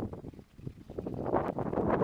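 Wind buffeting the camera's microphone in irregular gusts. It eases briefly about half a second in, then picks up again.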